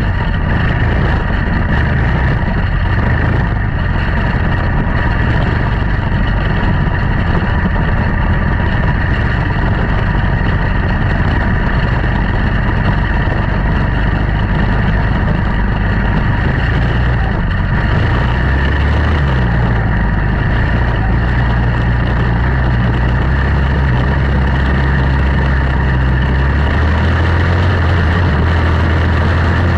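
Single-cylinder Briggs & Stratton Animal engine of a quarter midget race car running steadily, heard from on board. About two-thirds of the way through its note settles into a steadier, even drone.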